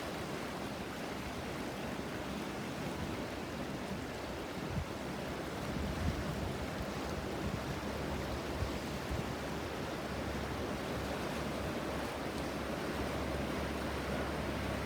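The Ganges River flowing, a steady rush of moving water, with a few brief low bumps from about five to nine seconds in.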